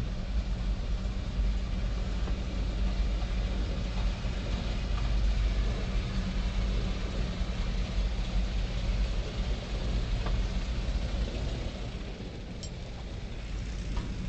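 Escalator running: a steady low mechanical rumble and hum from its drive and moving steps, easing off about twelve seconds in, with a couple of faint clicks near the end.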